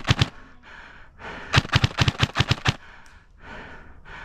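Airsoft gun firing: three quick shots, then about a second later a fast string of about eight shots.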